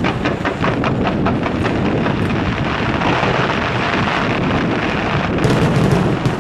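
Aerial fireworks display: a fast barrage of launches and bursts, sharp reports at about four or five a second at first, merging into a continuous rumble, with a cluster of louder bangs near the end.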